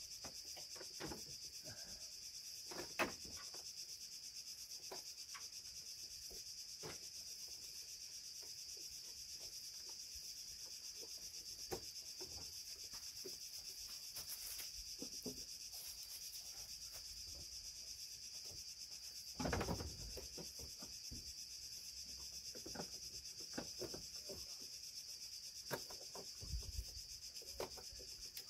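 Steady high-pitched chorus of insects, with scattered light clicks and knocks and one louder thump about two-thirds of the way through.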